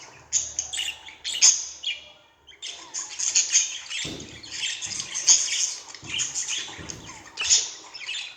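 Budgerigars chattering, a rapid stream of chirps and warbles with a short pause about two seconds in. A few soft low thumps are mixed in during the second half.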